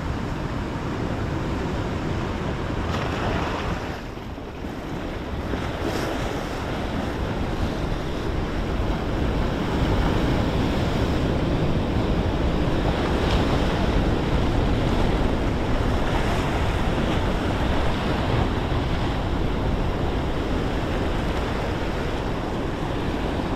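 Sea surf washing and breaking, with wind on the microphone; the level dips briefly about four seconds in, then swells again.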